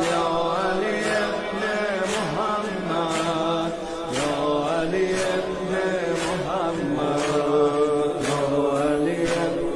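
Male voices chanting a Persian noha, a Shia mourning lament, in long held notes, with a faint steady beat about once a second.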